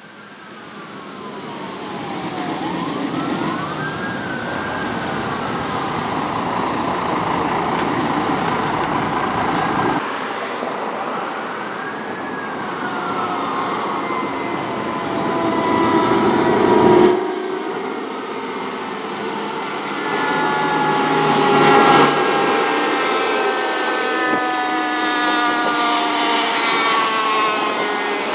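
Fire trucks responding with sirens over engine and road noise: an electronic wail siren rising and falling repeatedly. Near the end come several held siren tones that slowly fall in pitch as a truck passes. The sound changes abruptly twice, about ten and seventeen seconds in.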